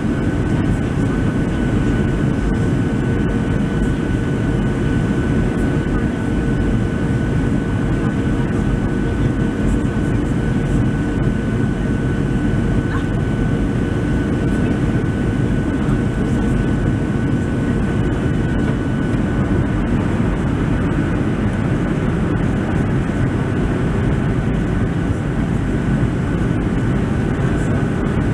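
Steady in-flight cabin noise of a Boeing 737-700 heard from a window seat over the wing: the low rush of airflow and the drone of its CFM56 turbofan engines, with a thin steady whine on top. A lower hum drops out about two-thirds of the way through.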